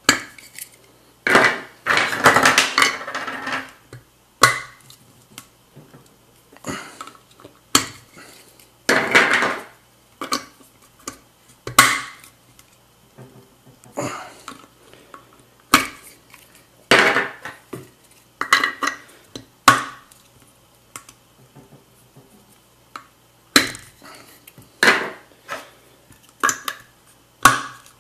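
A Mugen CF-48 centre cap being pushed into and worked back out of the alloy wheel's centre bore by hand: scattered clicks and knocks with a few longer scraping, rattling stretches, the longest a couple of seconds early on.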